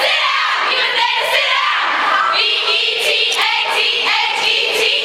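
A large group of young women singing together in chorus; about two seconds in, the singing settles into longer held notes.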